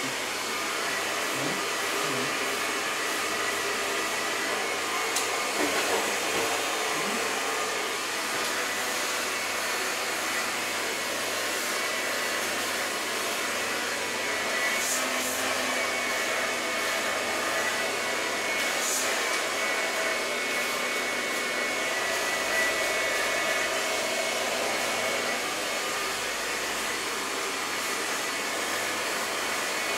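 Handheld hair dryer blowing steadily on short hair, an even rush of air with a faint high motor whine.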